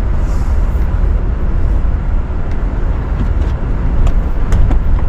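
SUV driving off-road through soft desert sand, a steady low rumble of engine and tyres. A few light knocks come in the second half.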